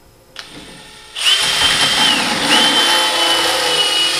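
Cordless drill spinning a conical deburring chamfer bit against the smashed-down threaded tip of a 1/4-20 steel bolt, cutting a fresh taper onto the damaged threads. The drill starts a little over a second in and runs with a steady whine, easing off briefly about halfway before running on.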